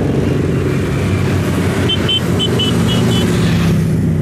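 Steady road traffic: the engines of passing vehicles running at a constant loud level, with a string of short high tones about two seconds in.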